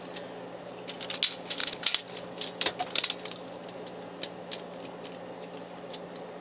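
Clicking and rattling of plastic printer parts as a dismantled HP DeskJet D1660 inkjet printer's frame is handled and pried with a screwdriver: a quick run of clicks and taps over the first three seconds, then a few scattered ones. A steady low electrical hum underneath.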